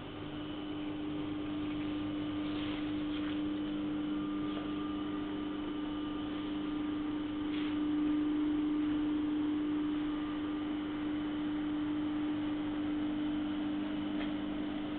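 Heat shrink tunnel running: a steady electric motor hum with one strong, even tone, growing a little louder over the first couple of seconds, with a few faint ticks.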